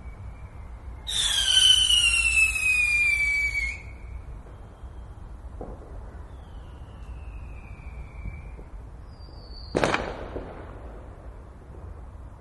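Fireworks: a loud whistling firework screams for about two and a half seconds, its pitch falling steadily, with fainter whistles further off. Near the end a single sharp bang goes off, over a steady low background rumble.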